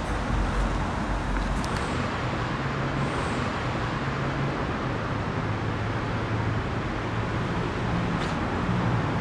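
Street traffic noise with a steady low engine hum from a vehicle idling, and a few brief high squeaks.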